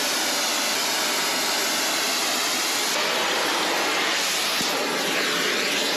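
Oxy-fuel torch flame burning with a loud, steady hiss while it heats a bent steel plate for straightening.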